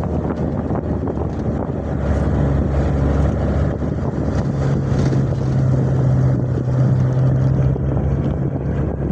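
A motor running steadily with a low rumble, with wind buffeting the microphone; a low hum comes up about two seconds in and holds until near the end.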